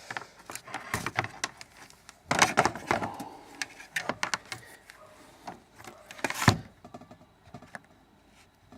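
Handling noise from a multimeter and its test leads being picked up and readied: scattered plastic clicks and knocks, a longer clattering rustle about two and a half seconds in, and a sharp click about six and a half seconds in.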